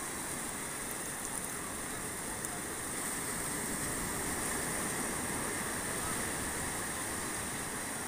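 Small waves of the sea washing in over rocks and sand at the shoreline: a steady rush of surf with water swirling close by.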